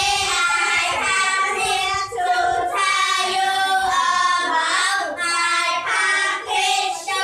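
A small group of children singing together in unison, held notes in several short phrases with brief breaks between them.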